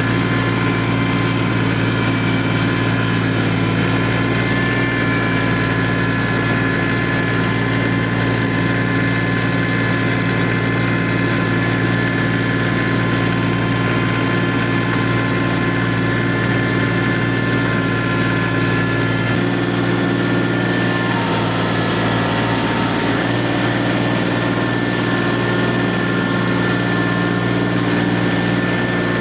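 Tractor engine running steadily, with a slight change in its tone about two-thirds of the way through.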